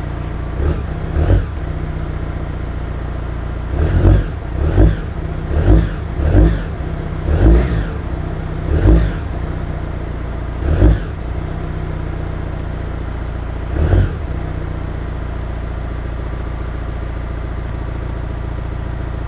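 Volkswagen Mk6 Golf 2.0 TDI diesel engine idling through a resonator-deleted stock Mk6 GTI exhaust, with about ten short throttle blips over the first fourteen seconds, then a steady idle.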